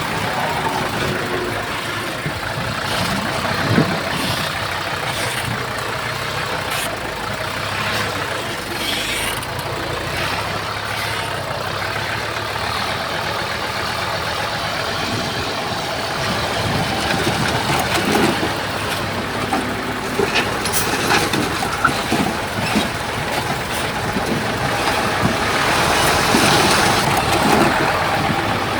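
Komatsu bulldozer's diesel engine running under load, with scattered clanks and knocks as it pushes soil and stone.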